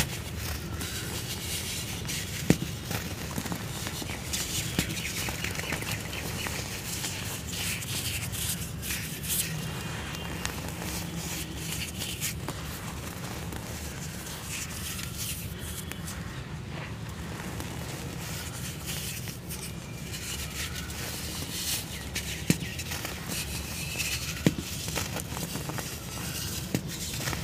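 Dry cement cones being crushed and crumbled by hand into powder: a continuous gritty crackling and crunching, with a few sharper cracks as chunks break.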